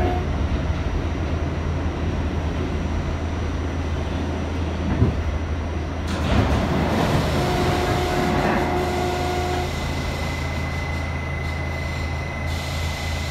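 Onboard an R68A subway car as it runs out of the tunnel and slows into a station: a steady low rumble of the running train. The sound opens up about six seconds in as the station platform comes alongside, and a steady high whine comes in about eight seconds in as the train brakes toward its stop.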